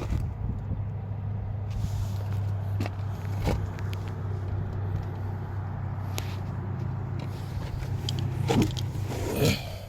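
A motor vehicle engine running steadily with a low hum, with a few short clicks and knocks over it; the two loudest knocks come near the end.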